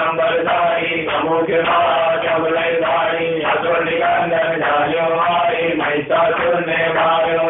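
A male voice chanting a Hindu devotional hymn in continuous repeated phrases, with a brief break about six seconds in.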